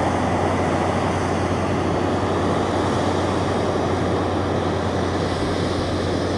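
John Deere combine harvester running steadily: an even machine noise over a constant low engine hum.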